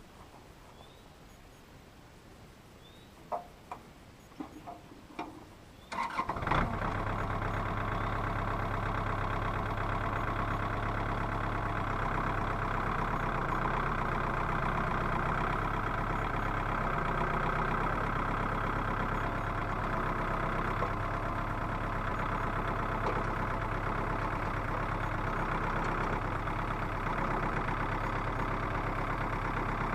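A few light knocks, then about six seconds in a small tractor's engine starts and settles into a steady run.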